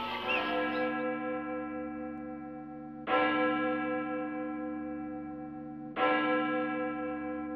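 A single church bell tolling slowly, struck twice about three seconds apart, each stroke ringing on and fading slowly.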